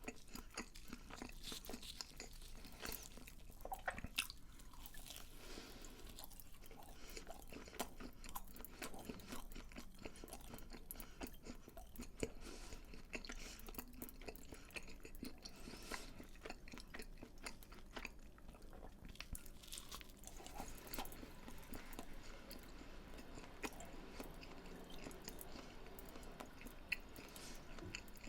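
Close-miked chewing of crunchy fried food, with many crisp crunches and wet mouth sounds going on without a break.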